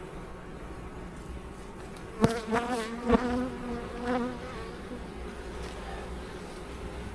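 Honeybees buzzing at an open hive. About two seconds in, one bee buzzes close by for around two seconds with a wavering pitch, with two sharp knocks during it.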